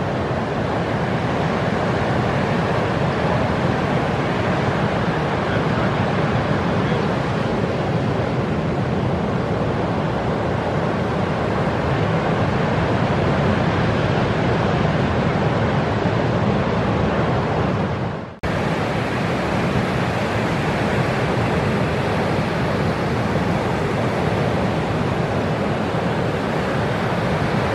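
Ocean surf breaking and washing: a steady rushing roar of waves. It drops out for a split second about two-thirds of the way through, then carries on.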